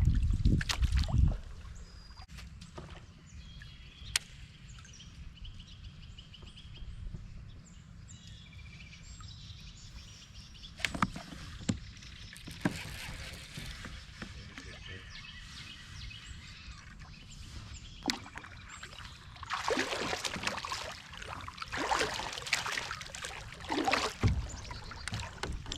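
Water and hull sounds around a kayak on a creek: a steady low wash with a few sharp knocks, then a run of splashing in the last few seconds.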